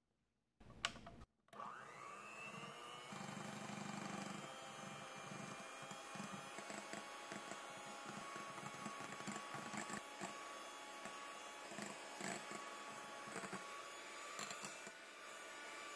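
Electric hand mixer running: after a short bump, its motor starts about one and a half seconds in, the whine rising and settling to a steady pitch as the twin wire beaters whip egg whites with egg yolks beaten in, with light irregular ticks throughout.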